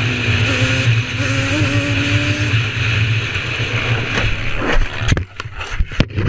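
Sport quad's engine running at speed with heavy wind noise, its pitch rising and falling. About five seconds in, a series of sharp knocks and impacts as the quad crashes and tumbles.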